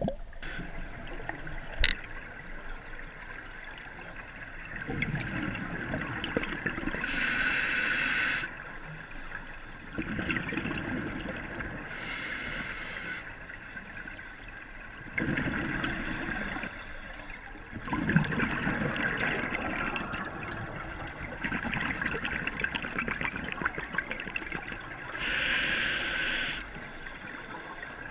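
Scuba diver breathing through a regulator underwater, heard close. Three high-pitched hissing inhalations, about 7, 12 and 25 seconds in, alternate with longer low, bubbling rushes of exhaled air.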